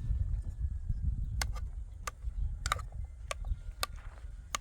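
A series of sharp clicks or knocks, about six of them spaced half a second to a second apart, over a steady low rumble.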